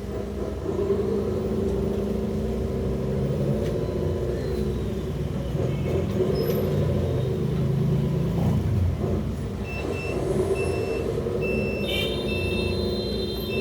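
Lesu Hino 8x8 RC dump truck running with a low, wavering engine-like drone. From about ten seconds in, a reversing beeper sounds in short, evenly spaced beeps.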